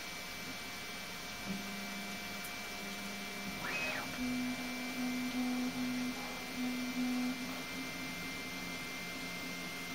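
Flashforge Adventurer 5M Pro 3D printer's stepper motors whining in pitched tones as the axes move. A quick rising-and-falling whine comes about four seconds in, followed by a run of short, louder tones until about seven seconds, over a steady hum.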